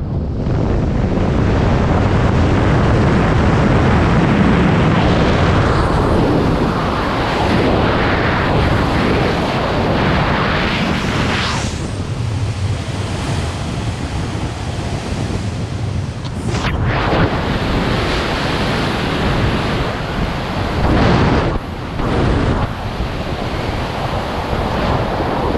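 Loud rushing wind on the camera's microphone from the airflow of wingsuit flight, steady with a few brief dips in the second half.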